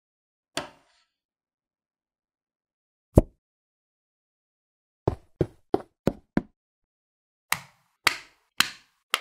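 Plastic LEGO-type bricks and dinosaur parts clicking as they are snapped together. There is one soft click, then a heavier knock about three seconds in, a quick run of five sharp clicks, and a few more spaced clicks near the end.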